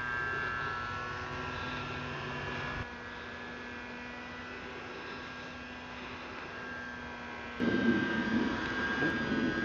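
Whine of a West Wings Orion E radio-controlled electric glider's motor and propeller in flight: a steady hum with several high tones. The sound shifts abruptly about three seconds in, then grows louder with added noise about seven and a half seconds in.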